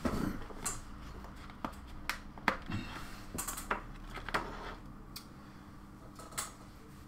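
A handful of sharp plastic clicks and taps, the loudest about two and a half seconds in, as a plastic heat-shrink tubing assortment box is handled and its hinged lid is opened.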